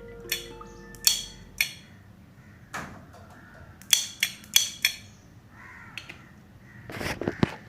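A series of sharp clicks and knocks, about a dozen spread irregularly, several with a brief metallic ring, and a louder cluster near the end.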